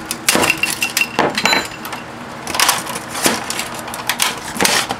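A hammer striking a small plastic desk fan to break its motor free: about eight sharp, irregular blows, some with a brief ringing.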